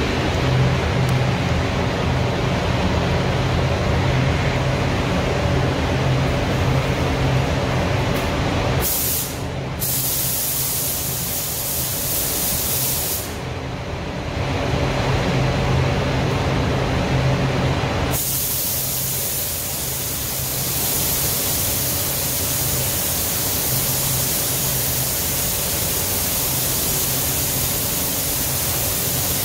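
Paint booth ventilation running with a steady hum; partway through, a gravity-feed paint spray gun starts hissing, briefly at first and then continuously through the second half, as clear coat is sprayed onto the car.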